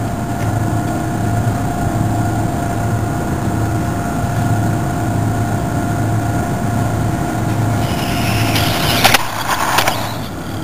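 Battery-electric RC car making a timed speed pass: a rush of motor and tyre noise swells about eight seconds in, with two sharp knocks, over a steady background hum.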